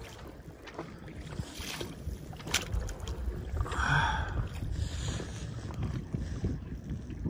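Kayak paddle dipping and splashing in the water a few times at irregular intervals, over a steady low rumble of wind on the microphone.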